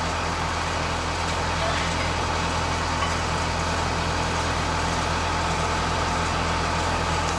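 An engine idling steadily, a low even hum that holds without change.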